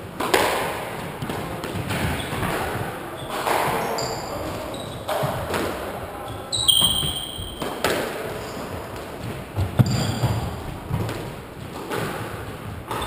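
Squash rally: the ball cracks off the rackets and walls about every two seconds, each hit ringing briefly around the enclosed court. Short high squeaks of court shoes on the wooden floor come in between, most clearly about seven seconds in.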